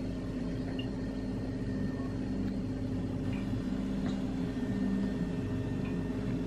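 Steady low electric hum of a kitchen appliance motor, with a few faint ticks.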